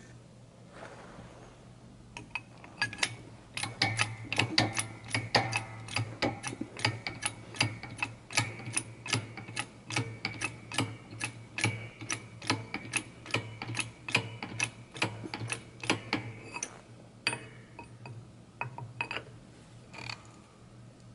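Hydraulic shop press being pumped by hand, a sharp click about two to three times a second, driving the plunger down into the heated block of a homemade injection molding machine. The clicks start about two seconds in, thin out near the end, and run over a steady low hum.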